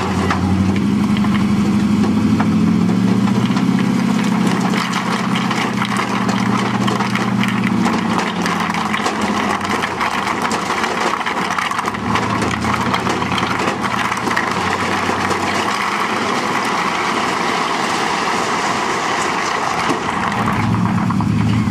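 Three-axle dump truck's engine running while the bed is raised, then a load of rocks slides out and tumbles onto the ground from about eight seconds in, a long run of stone-on-stone knocks over the engine.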